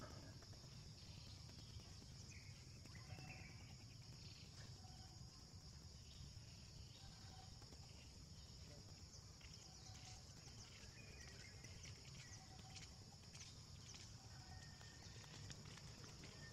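Near silence: faint outdoor ambience, a steady high insect drone over a low rumble, with a few faint ticks.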